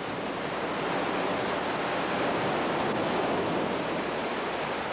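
Storm at sea: heavy rain and rough water making a steady rushing noise.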